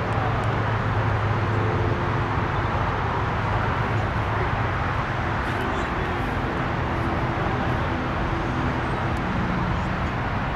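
Steady outdoor background rumble and hiss with a low hum running under it.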